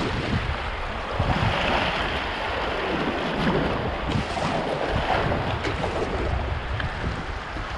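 River water rushing and splashing around a kayak's bow and paddle blades as it is paddled through a shallow riffle. Wind buffets the microphone, adding an uneven low rumble.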